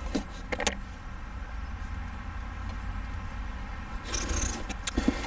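Cardboard subscription box being opened and handled: a few short clicks and rustles near the start, then a burst of rustling and crackling about four seconds in, over a steady low rumble.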